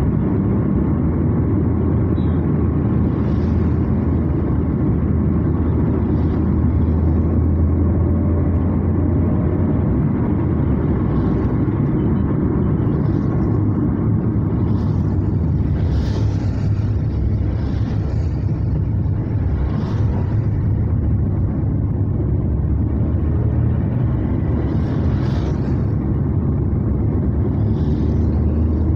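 Steady low rumble of a car's engine and tyres heard from inside the cabin while driving on a wet road, with brief hisses every few seconds.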